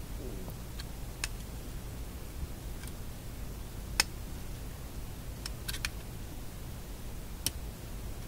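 A few scattered sharp metallic clicks, the loudest about four seconds in, as a handheld magnet taps and is stroked along the internal magnet of a Philco shadow meter to re-magnetize it, over a low steady hum.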